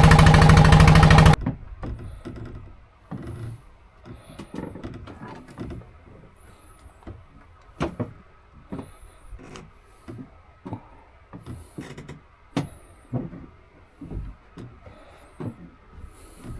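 A boat's engine runs loudly and steadily, then cuts off abruptly about a second in. It is followed by scattered knocks and clicks with faint high squeaks.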